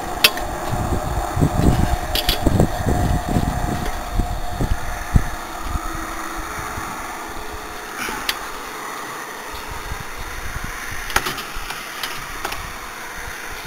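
Traffic passing on the interstate, a steady rush with a heavier low rumble through the first half that fades, punctuated by a few sharp metallic clicks.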